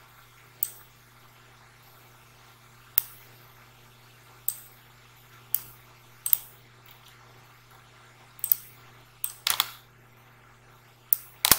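Irregular sharp clicks of a computer mouse and keyboard, about a dozen in all, with a quick run of several clicks a little after halfway. A faint steady low hum sits underneath.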